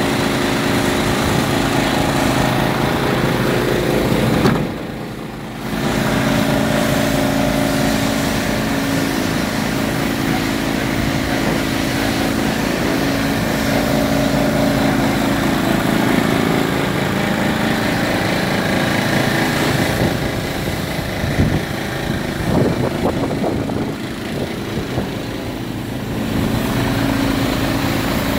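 Iveco EuroStar 440E42 tractor unit's diesel engine idling steadily, with a brief drop in level about five seconds in.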